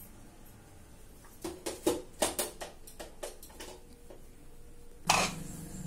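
Handling noise: a run of light clicks and knocks, then a single cough about five seconds in.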